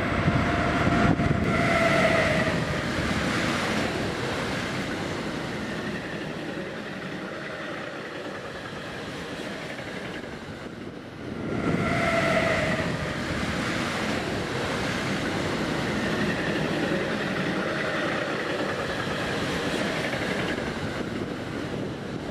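Electric freight trains passing: the locomotive and freight wagons rumble and clatter over the rails. A short whine of several tones sounds about two seconds in, and again about twelve seconds in, when a locomotive passes close.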